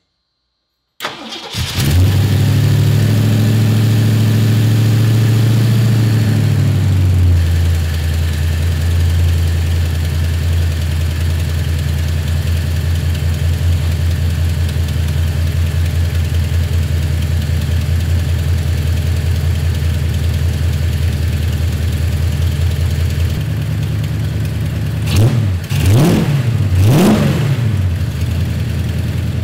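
Freshly installed Blueprint 302 V8 crate engine starting up about a second in, running at a raised fast idle, then dropping to a lower steady idle after about seven seconds. Near the end it is revved twice, rising and falling each time, then returns to idle.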